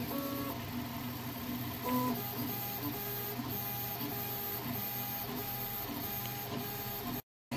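Hypercube CoreXY 3D printer printing: its stepper motors whine in pitched tones that change with each move of the print head, and a higher tone pulses on and off about twice a second. The belts are misaligned and are walking back and forth on the pulleys. The sound cuts off shortly before the end.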